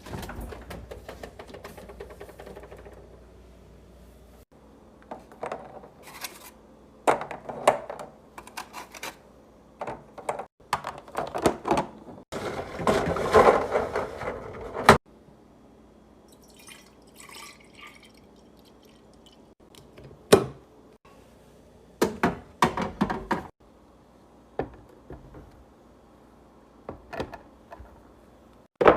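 Fridge restocking sounds: containers and packages handled and set down with scattered knocks and clatters, and in the middle a few seconds of liquid pouring into a container that stops abruptly.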